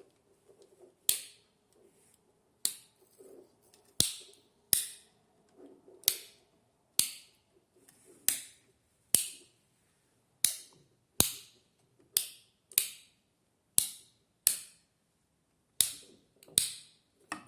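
Light switch rockers clicking on and off, about seventeen sharp clicks at uneven intervals of roughly a second.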